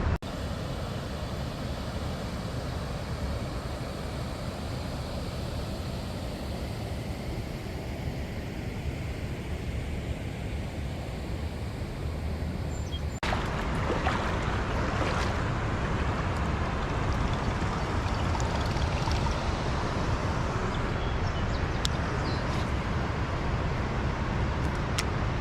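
Steady rushing noise of flowing river water mixed with wind on the microphone, changing abruptly and growing a little louder about halfway through.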